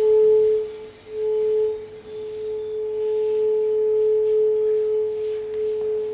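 Shakuhachi holding one soft, almost pure note, with two short dips in the first two seconds, then sustained steadily.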